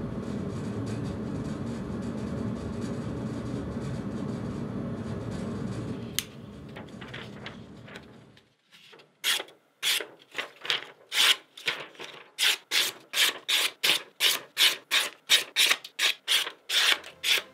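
Spyderco Manix 2 folding knife with a CPM S30V blade slicing through sheets of paper in quick repeated cuts, about two to three a second, starting about nine seconds in. Before the cuts there is a steady low rumble and a single click about six seconds in.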